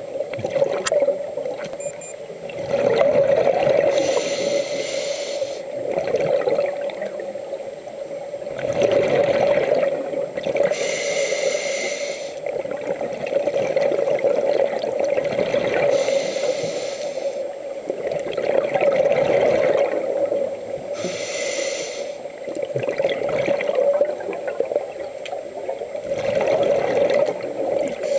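Scuba diver breathing through a regulator underwater: a hiss and burble of bubbles that comes back about every five to six seconds, over a steady low hum.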